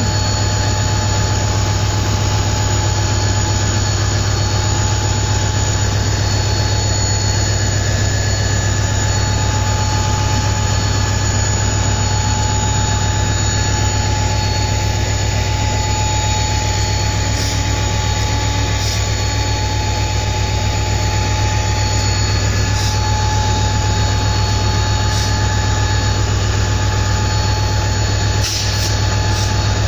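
Twin WDG4 diesel-electric locomotives accelerating under load, their turbocharged two-stroke V16 engines giving a steady low drone under a high-pitched turbocharger whine, the jet-engine sound of these locos. A few light clicks come in the last third.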